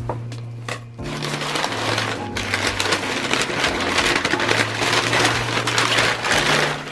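Packaging crinkling and rustling as it is handled and unwrapped, starting about a second in and continuing until just before the end, over background music with a steady bass line.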